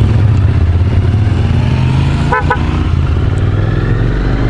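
Suzuki V-Strom motorcycle riding at a steady pace, its engine a steady low drone under road and wind noise. About halfway through, a vehicle horn gives two short toots.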